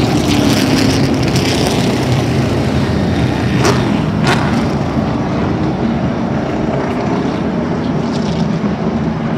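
A field of late model stock cars racing, their V8 engines running together at speed in a steady loud drone, with a car going by close about four seconds in.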